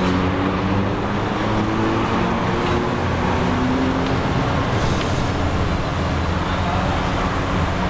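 Steady low mechanical hum and rumble, even in level, with a few sustained low tones.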